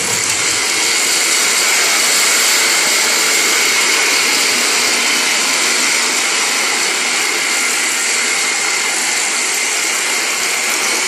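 The light show's soundtrack playing over loudspeakers: a loud, steady rushing noise with faint high tones running through it.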